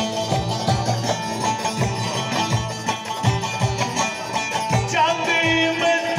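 Live folk dance music from a band of plucked lutes, oud and saz, over a steady beat. About five seconds in, a held, gliding melody line comes in on top.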